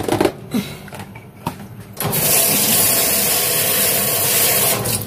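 A few clattering knocks on the kitchen counter, then a kitchen tap turned on hard, water rushing into the sink for about three seconds before it is shut off.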